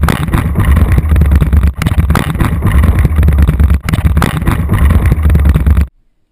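Wilderness Systems Tempest 170 sea kayak hull scraping and bumping over the ground as it is dragged along a boat ramp, picked up through its deck-mounted camera as a loud, rumbling grind with frequent jolts. It cuts off suddenly about six seconds in.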